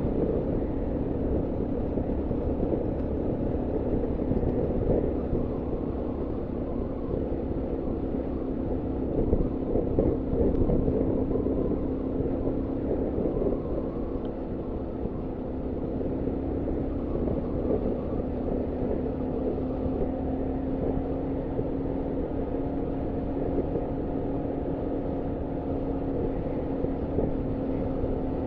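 Honda Monkey 125's single-cylinder four-stroke engine running steadily at road speed, heard from inside the rider's helmet with heavy wind rumble. The engine note stays steady, with a slight sag in loudness partway through.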